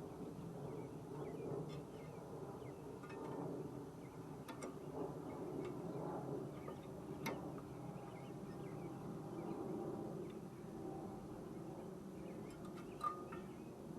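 A few light metallic clicks and taps as brake pads and caliper-bracket hardware are handled and fitted, the sharpest about thirteen seconds in, over a steady low background hum.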